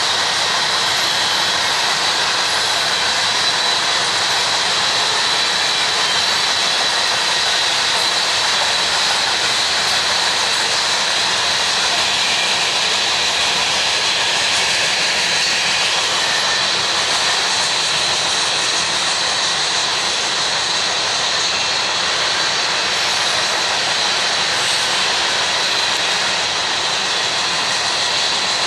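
Loaded grain train's covered hopper cars rolling past: steady rolling noise of steel wheels on the rails, with a thin, high-pitched ring held over it.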